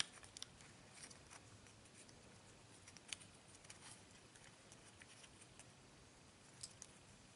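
Near silence with faint, scattered small clicks and rubs as the plastic converter ring of a smartphone adapter for a monocular is handled and fitted, the clearest click about three seconds in.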